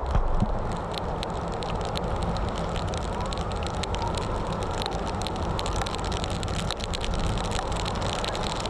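Motorcycle riding: the engine runs steadily under a constant rush of wind and road noise, with frequent small rattles and clicks. There are a couple of louder knocks right at the start.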